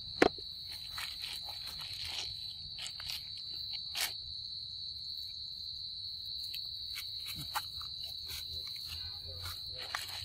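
Insects droning steadily on one high pitch, with scattered short clicks and a sharp click just after the start.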